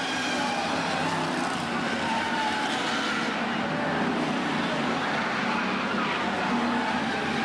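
F1 stock cars' V8 engines racing past in a pack, a dense, steady mix of engine notes that shift up and down in pitch as the cars come through the bend.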